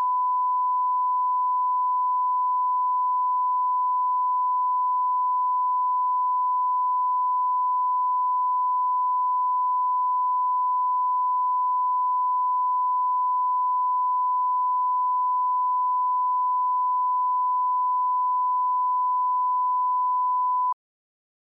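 Steady 1 kHz broadcast line-up reference tone, the alignment tone played with colour bars at the head of a programme tape. It holds one unchanging pitch and cuts off suddenly near the end.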